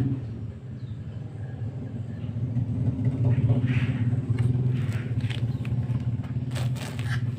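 Steady low mechanical rumble, with a few faint clicks and taps scattered through the second half.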